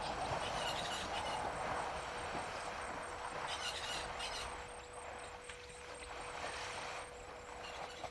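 Water splashing and sloshing as two African elephants wade and push at each other in a shallow waterhole, louder in the first half and easing off later. A faint steady hum runs underneath.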